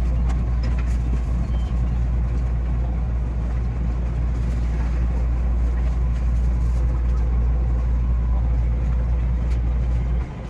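Running noise of a 227 series electric train heard from the cab: a steady low rumble. It drops away suddenly near the end.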